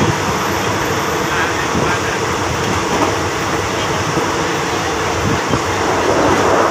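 Passenger train running along the line, heard from inside the carriage: a steady rumble and rattle of the wheels on the track.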